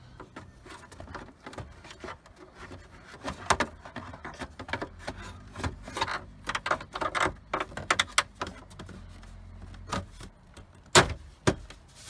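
Plastic lower dash trim panel being wiggled onto its guide pins, knocking and scraping against the dash in irregular clicks, then snapping in with two sharp clicks near the end.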